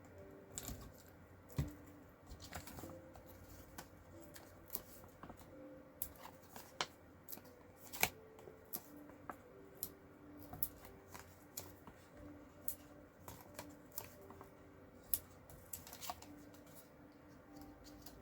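Paper and cardstock craft pieces being handled on a table: light, irregular clicks, taps and soft rustles as the cut pieces are turned over and foam adhesive dimensionals are put on.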